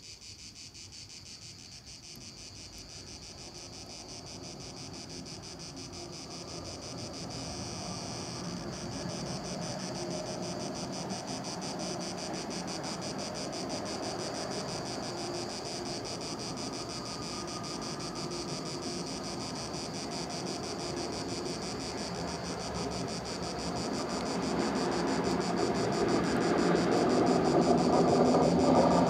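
Crickets chirping in a fast, steady pulse, while the rumble of an approaching train builds slowly beneath them and grows much louder over the last few seconds.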